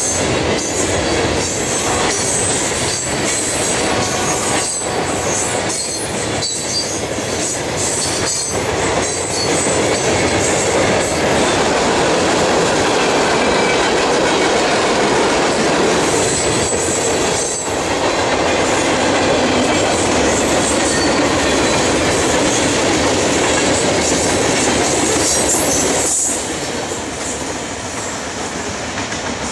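Freight cars rolling past at track speed: a steady roar of steel wheels on rail with clicking over rail joints and some wheel squeal. The sound drops a little near the end as the cars recede.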